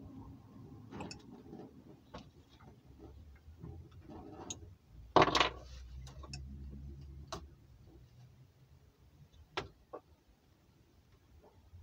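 Scattered clicks and light ticks of hands working on a small M12b model four-stroke gas engine, with one louder short burst about five seconds in; the engine is not running steadily.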